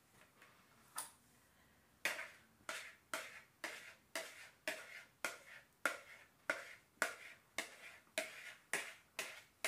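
Fingers tapping the base of an upturned plastic mixing bowl to knock out the last of the sauce: one tap about a second in, then a steady run of sharp taps about two a second.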